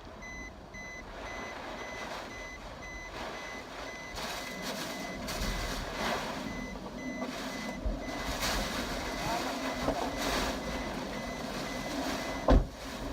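An electronic warning beeper sounding steadily about twice a second, under typhoon wind noise that grows louder about four seconds in. The beeping stops near the end, just before a single sharp bang.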